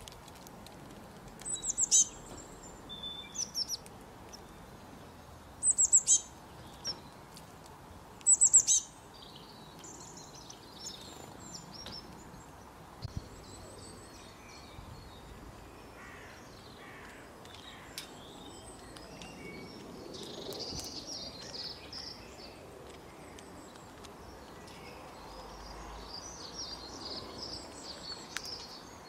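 Small birds calling: three loud, high, sharp call phrases in the first nine seconds, then softer, scattered high chirping and twittering over a faint steady outdoor background.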